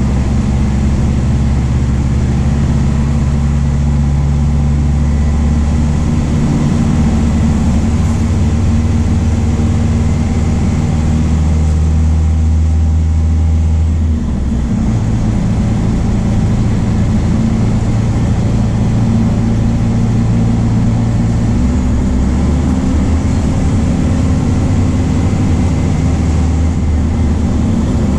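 Bus diesel engine, a MAN D0834 four-cylinder turbodiesel in a VW 17.230 OD, running under way. Its pitch steps up and down several times, with a short dip in loudness about fourteen seconds in.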